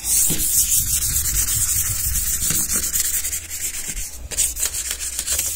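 Sandpaper scuffing across a painted, riveted panel: a steady scratchy hiss made of rapid strokes. The old paint is being sanded down to a dull, chalky surface as prep for repainting.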